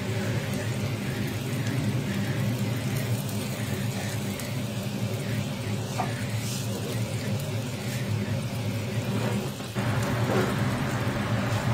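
Burger patties sizzling on a flat-top griddle over a steady low hum. The sizzle gets louder and fuller about ten seconds in.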